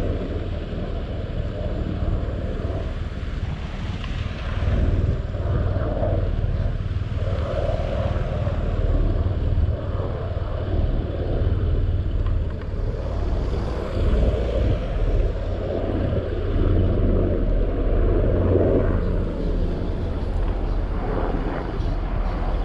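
Mini excavator engine running steadily under load while the machine digs a ditch, with uneven scraping and grinding from the bucket and hydraulics working through the soil.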